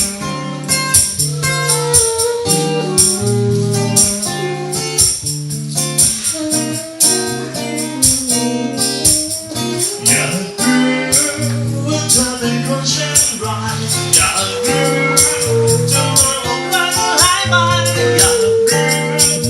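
Live band playing a song, with a steady beat, bass line and guitar.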